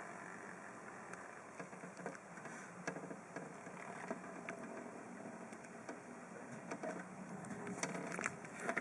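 Faint pattering and scattered soft ticks of a scaleless Texas rat snake moving and rattling its tail against the fleece bedding and tank, a defensive tail-rattle; the ticks come more often near the end.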